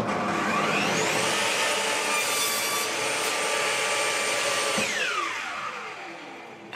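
Table-mounted router spinning up with a rising whine and then running steadily while it cuts notches into pine strips. Near the end it is switched off and winds down, its pitch falling away.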